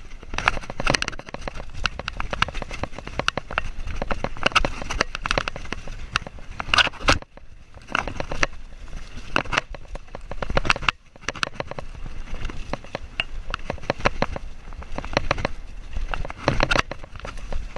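A GoPro camera rattling hard in its mount as a mountain bike rides over a bumpy dirt trail, a dense fast clatter of clicks and knocks. The rattle drops away briefly twice, about seven and eleven seconds in.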